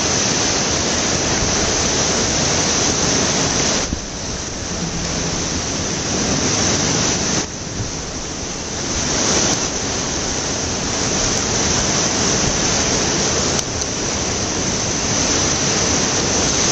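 Steady rushing and hissing of water swirling in whirlpools at the surface, with a few sudden jumps in level.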